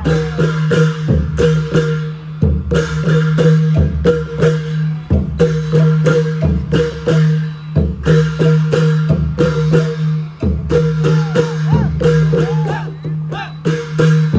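Thai long-drum (klong yao) ensemble music. A deep drum beat comes about every second and a third, with many sharp strokes in between, over a steady plucked-string drone.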